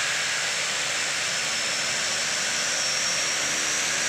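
Pilatus PC-6 Porter's turboprop engine running on the ground: a steady hiss with a thin, high turbine whine that creeps slowly upward in pitch.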